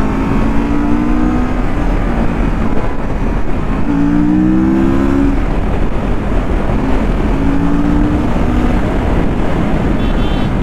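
Motorcycle riding in traffic: engine running under steady wind and road noise, its note rising briefly three times.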